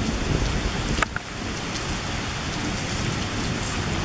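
Steady rain falling on the ground and foliage, with one brief sharp tick about a second in.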